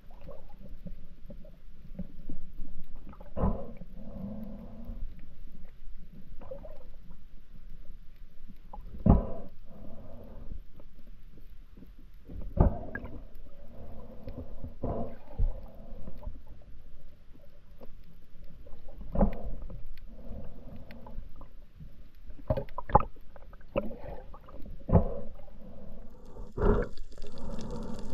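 Muffled underwater sound from spearfishing: a low murmur with irregular dull knocks every few seconds, and a brighter hiss coming in near the end.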